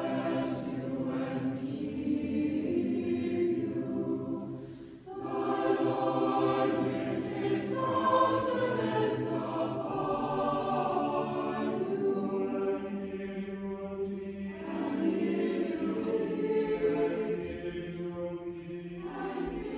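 Choir singing slow, sustained lines as background music, with a short break between phrases about five seconds in.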